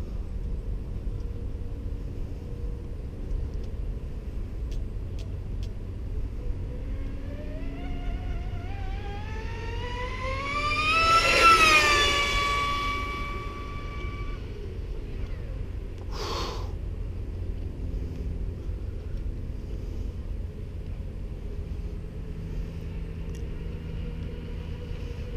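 TFL Zonda RC speed boat's brushless electric motor (SSS 3674, 2075kv) whining through a high-speed pass. The whine climbs in pitch over several seconds to a loud peak about eleven seconds in, then drops slightly and holds before fading. A short hiss comes about sixteen seconds in, over a steady low rumble.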